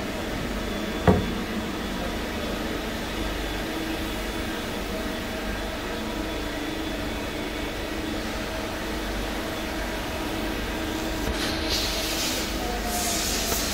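CNC Swiss-type lathe running with a steady machine hum of several held tones. There is a single sharp knock about a second in, and bursts of hiss near the end.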